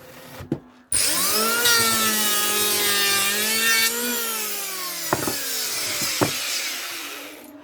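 Electric wood planer cutting a board: a loud rasping cut with a whine that starts abruptly about a second in. The whine's pitch sags gradually as the cut goes on, then the sound stops just before the end, with a couple of sharp knocks along the way.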